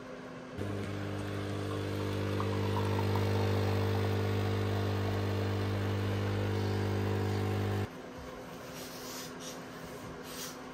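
A steady, evenly pitched machine hum switches on under a second in, swells briefly, holds, and cuts off abruptly about seven seconds later.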